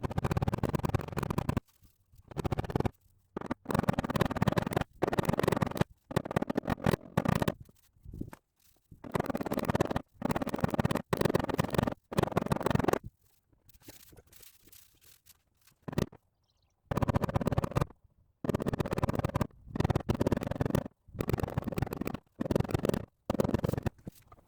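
Hand sanding of body filler on a car's rear wheel arch panel: repeated rough scraping strokes in runs of about a second, with short pauses between them and a quieter spell about halfway through.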